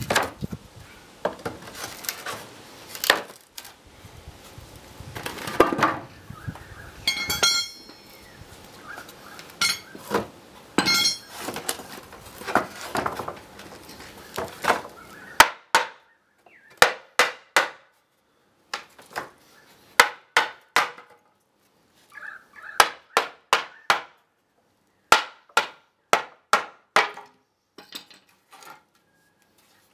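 Pallet top boards being pried apart with a pry bar, the wood and nails creaking and cracking. About halfway through this gives way to sharp hammer knocks on the boards, mostly in quick runs of two to four.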